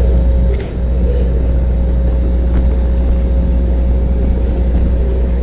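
Two diesel locomotives working as mid-train distributed power units in a freight train, running past with a steady, heavy low engine rumble and a thin high whine.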